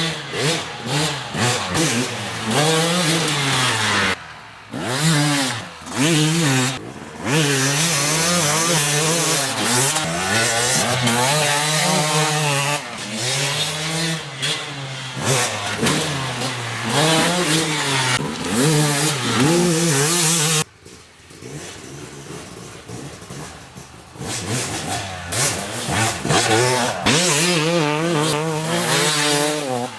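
250cc two-stroke dirt bike engines revving hard as they are ridden, the pitch climbing and dropping again and again with throttle and gear changes. The sound breaks off abruptly several times, and there is a quieter stretch about two-thirds of the way through.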